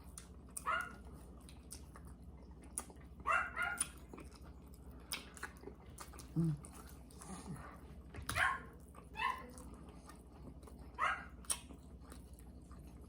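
A dog barking in short, separate bursts at irregular intervals.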